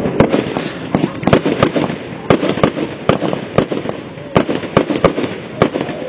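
Fireworks going off in an aerial display: a rapid, irregular run of sharp bangs and crackles, often two or three a second.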